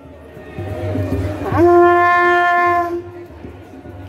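A horn blown in one long held note, swooping up in pitch into it about a second and a half in and stopping about a second and a half later.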